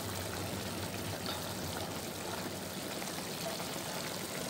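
Liver in tomato-and-onion sauce simmering in a frying pan, a steady bubbling.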